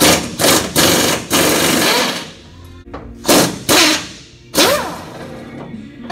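Impact wrench firing in several short rattling runs on the bolts under a pickup's rear bumper, the last one spinning down with a gliding whine. Background music runs underneath.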